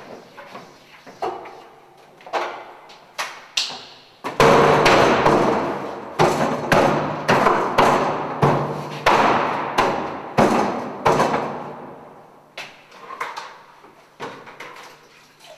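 Wet sponge slapped and dragged hard across a chalk-covered blackboard on a wheeled stand in sweeping strokes, each a thud with a wet swish as it fades. A run of heavy strokes, roughly one or two a second, starts about four seconds in and dies away a few seconds before the end, with lighter knocks before and after.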